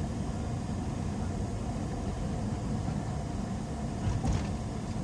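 Steady rumble of a car's engine and tyres heard from inside the cabin as it creeps along slowly in traffic, with one brief louder knock a little past four seconds.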